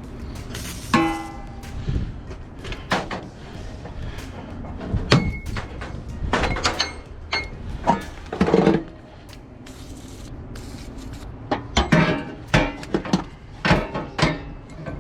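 Irregular metallic clanks and rattles of tie-down straps with hooks being handled and pulled apart, with a ringing clank about a second in and a quicker run of rattles near the end.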